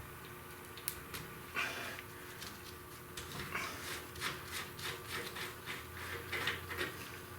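Hand work on a cart's wheel assembly: small parts clicking and scraping. There is one sharp click about a second in, then a run of short clicks and rubs in the second half.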